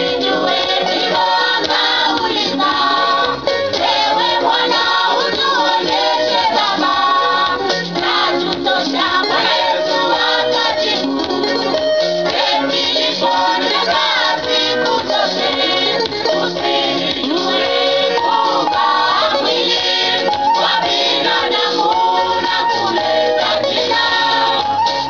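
Church choir singing a Swahili gospel song over a steady beat.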